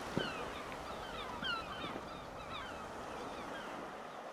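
Seaside ambience: many short, falling bird calls over a steady wash of wind and surf, with one brief low thump just after the start.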